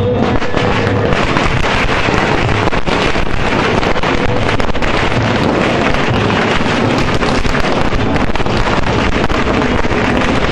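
Heavy wind buffeting a phone's microphone: a loud, steady, rough rumble and hiss that covers everything else.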